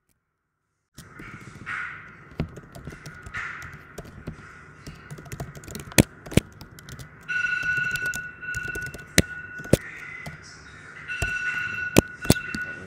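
Computer keyboard keys clicking now and then as code is typed, with several sharp, loud keystrokes. A steady high tone of unclear origin sounds twice in the background, each time for about a second and a half.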